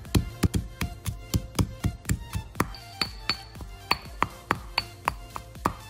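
A pestle pounding candlenuts, garlic and ginger into a spice paste in a mortar, in steady strokes at about three to four a second, some strokes ringing briefly. Background music plays throughout.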